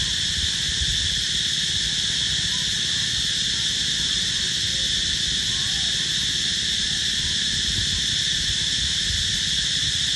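Steady, high-pitched chorus of insects droning without a break, over a low, uneven rumble.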